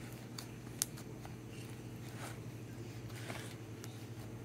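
Puffy slime being kneaded and poked with fingertips: soft squishes and small air-pocket pops, the sharpest one a little under a second in, over a steady low hum.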